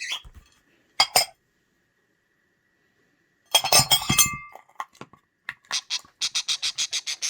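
Hard clinks and clatter: a short burst of clattering about three and a half seconds in, then a quick, even run of sharp clinks, about five a second, near the end.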